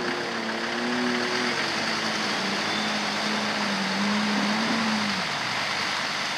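Off-road 4x4 engine running hard in deep mud, its note wavering and then falling away about five seconds in, over a steady hiss.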